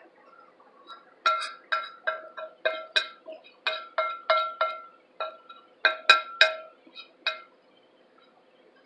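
Metal spoon clinking against a plate through a layer of cornstarch: a quick, uneven run of about fifteen ringing taps, roughly three a second, starting about a second in and stopping a little after seven seconds.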